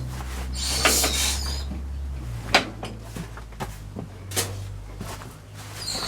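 Irregular metallic clunks and knocks from the McCormick-Deering W-4 being hand-crank started, over a steady low hum.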